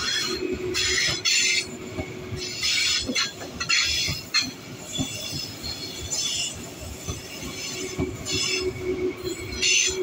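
Frecciarossa high-speed train passing, its wheels squealing on the rails in repeated high screeches about once a second, over short knocks from the wheels and a steady low hum.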